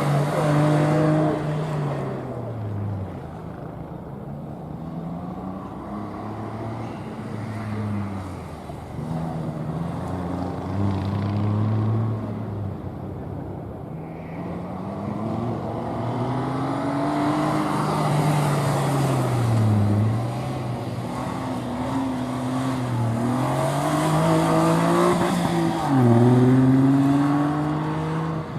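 A car's engine running hard through a gymkhana course, its pitch climbing and dropping every few seconds as the driver accelerates and lifts off between turns, loudest near the start and again near the end as it comes closest.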